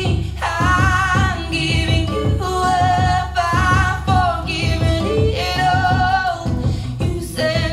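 R&B/pop song playing through a JBL 4329P active studio monitor: a lead vocal holds long notes with vibrato over a steady bass line and beat.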